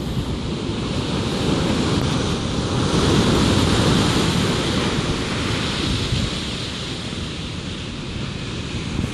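Ocean surf breaking and washing up a sandy beach, with wind buffeting the microphone. The wash swells about three seconds in and eases off again.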